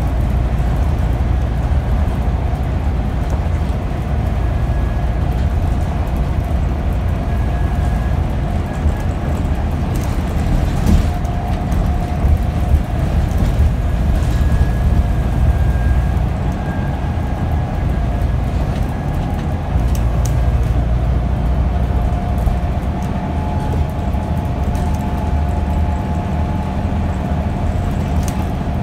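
A Scania N94UD OmniDekka double-decker bus engine and driveline running under way, heard from inside the passenger cabin. A heavy low rumble carries a steady whine that shifts in pitch a few times.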